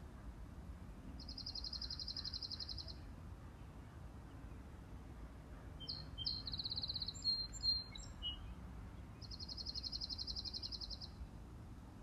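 Small songbirds singing: a rapid, even trill about two seconds long, heard twice. Between the trills comes a more varied song that ends in a couple of loud, sharp notes. Underneath runs a steady low background rumble.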